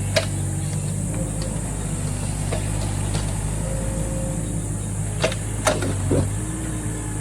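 Excavator engine running steadily while digging, with a sharp clank just after the start and three more in quick succession a little past the middle.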